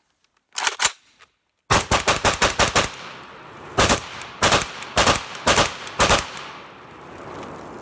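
Zastava PAP M92 AK pistol firing 7.62x39 rounds: a fast string of about eight shots, then roughly eight more at a slower, uneven pace, with echo ringing after each.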